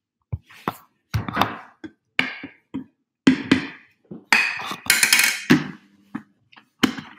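Irregular knocks, bumps and clatters, a dozen or so short hits, with a louder rustling, clattering stretch about four to five and a half seconds in.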